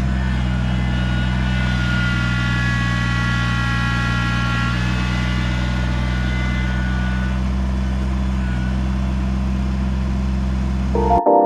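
Kubota BX tractor's three-cylinder diesel engine running steadily, with a higher whine over it that fades out about halfway through. It cuts off suddenly near the end.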